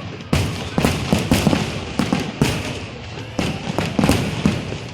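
Fireworks exploding overhead: a quick, uneven series of about a dozen sharp bangs.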